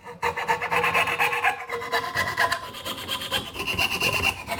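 Magic Saw hand saw's thin rod blade rasping through a wooden board in quick back-and-forth strokes, cutting a curved line.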